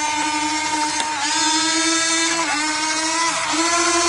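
Electric gear motors of a Huina RC excavator whining steadily as its controls are worked. The pitch dips and steps several times, about once a second, as the levers are switched.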